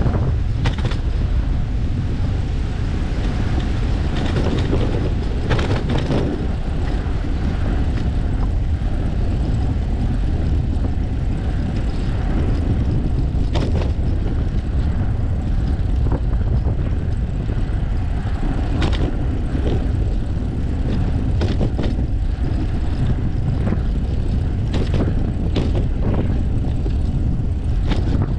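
Steady rumble of a bicycle ride picked up by a bike-mounted GoPro: wind on the microphone and the rolling of the tyres, loudest at the low end. Brief knocks or rattles come now and then.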